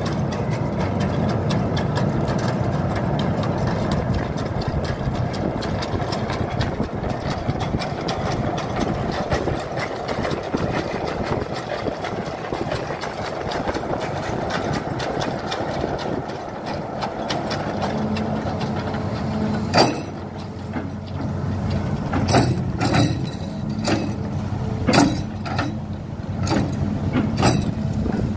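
An engine running steadily, followed by a series of sharp knocks over the last eight seconds or so.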